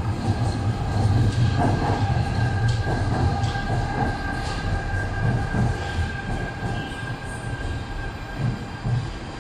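Guangzhou Metro Line 4 L5 (SFM37) linear-induction-motor train running into the station and braking to a stop: a low running noise with a steady high whine from its Times Electric IGBT-VVVF inverter. The sound fades out near the end as the train slows.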